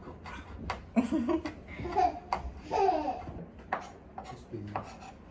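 Chef's knife chopping a chili pepper on a wooden cutting board: irregular sharp knocks of the blade on the board. A woman laughs from about a second in to about three seconds in.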